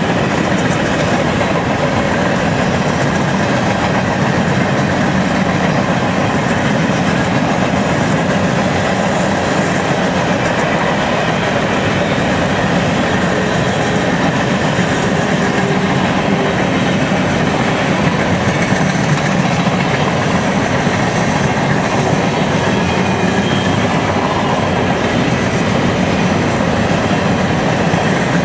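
Freight train of open-top hopper cars rolling past: steady noise of steel wheels on rail, even and unbroken throughout.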